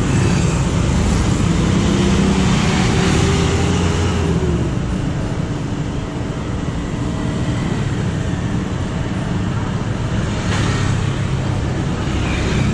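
Road traffic: small motorcycles passing close by, one at the start and another near the end, over a steady low engine hum.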